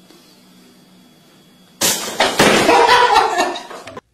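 Pop-up toaster springing up with a sudden clang about two seconds in, followed by loud wavering cries that stop abruptly; a faint steady hum comes before the clang.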